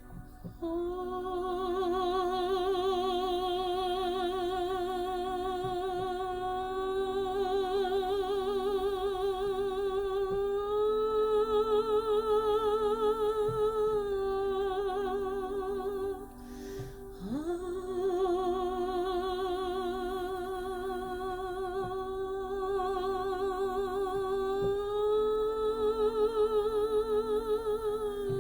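A woman's voice toning long, sustained sung notes with vibrato for sound healing: two long held tones that each step up slightly in pitch partway through and settle back down, with a breath between them about halfway through. A steady lower drone sounds underneath.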